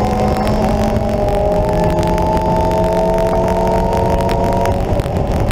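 Lotus Exige S engine heard from inside the cabin, pulling under throttle with its pitch rising slowly and steadily, then breaking off and dropping near the end as the driver lifts or shifts. Road and wind noise run underneath.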